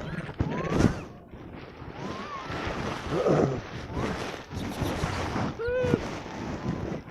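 Wind buffeting the microphone, with a few short calls that rise and fall in pitch, one arched call near the end the clearest.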